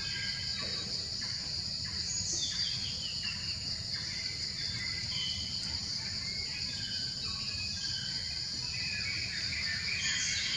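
Steady high-pitched drone of insects, crickets or cicadas, with scattered short bird chirps over it and a low steady rumble underneath.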